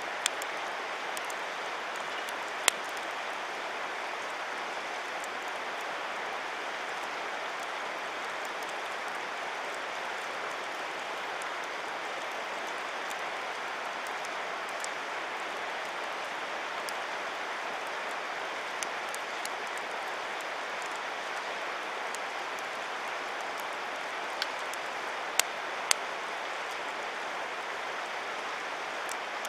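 Wood campfire burning, with a handful of sharp pops and cracks from the burning wood: one near the start, one a few seconds in and several in the last few seconds. They stand over a steady rush of flowing river water.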